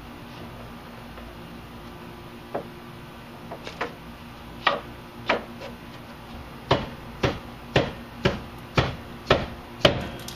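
Repeated hammer taps driving the pitman shaft down through the new pitman shaft seals into a Saginaw power steering gearbox. A few scattered strikes come first, then a steady run of about two taps a second in the second half.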